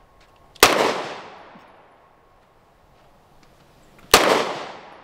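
Two 9mm shots from a Canik Mete MC9 pistol, about three and a half seconds apart. Each is a sharp crack with an echo that dies away over about a second.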